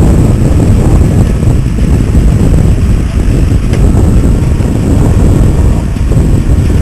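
Rotary drilling rig running: a loud, steady, heavy mechanical rumble.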